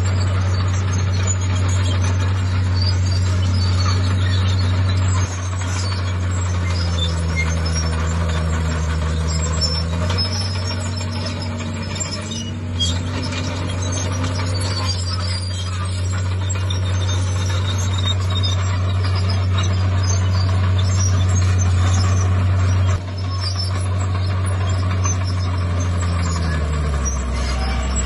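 Heavy diesel earthmoving machinery running with a steady low drone. Its level shifts a few times, and its note falls near the end as it slows.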